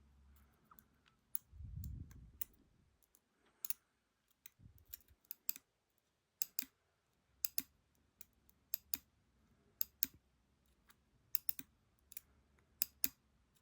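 Small tools and loose lock parts being handled on a hard surface, making a run of sharp, irregular clicks and taps, with a dull low thump about two seconds in.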